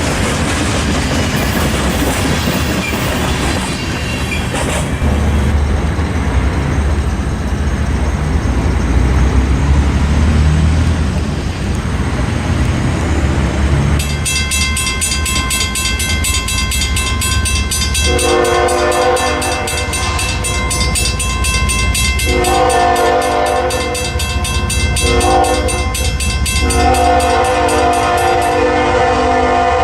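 Train rolling on the rails with a steady low rumble. About halfway through, a locomotive's multi-tone air horn starts and sounds in several long blasts separated by short breaks.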